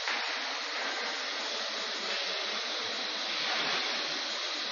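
Steady rushing hiss of factory background machinery, like a blower running, with no distinct knocks or tones.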